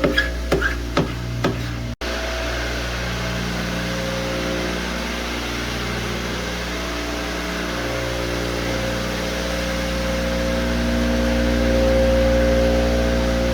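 Floor buffer with a screening pad running steadily, abrading the old polyurethane finish on a hardwood floor; a steady motor hum that grows a little louder toward the end. It follows a brief rhythmic music beat that cuts off about two seconds in.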